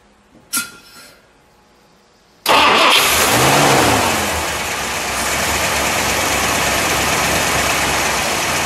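A brief sharp noise, then the 1958 Dodge Regal Lancer's 350 cubic-inch Chrysler big-block V8 with a four-barrel carburettor fires suddenly about two and a half seconds in. It briefly revs up and drops back, then settles into a steady idle.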